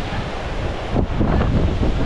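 Ocean surf breaking and washing up the beach, with wind buffeting the microphone; both grow louder about a second in.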